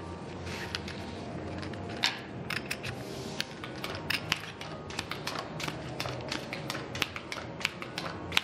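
Casino chips clicking and clacking together in quick, irregular strokes, with cards being gathered and dealt on the felt of a blackjack table, over a low steady hum.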